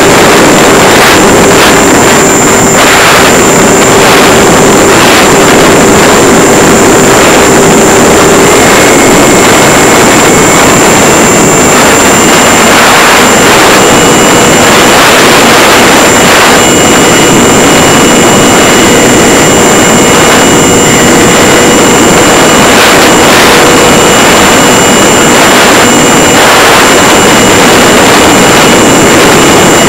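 Electric motor and pusher propeller of a Multiplex EasyStar RC plane in flight, heard from a camera in its belly under loud rushing wind noise on the microphone. The motor's steady whine steps up a little in pitch about eight seconds in.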